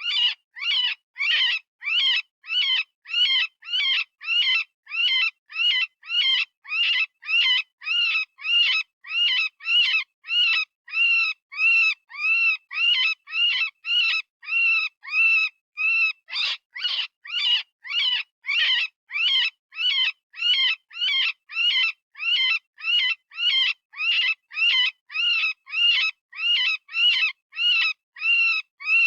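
Software-generated rabbit distress call of the kind used for predator calling: a high scream repeated as short cries, a little under two a second. Each cry rises and falls in pitch.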